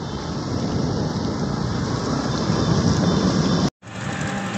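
Steady road and wind rumble of riding in an open vehicle through traffic, with a momentary dropout near the end.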